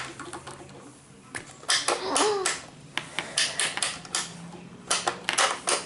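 Quick plastic clicks and rattles from a Shopkins Sweet Spot Food Fair toy candy cart play set and its small plastic pieces being handled, in scattered clusters.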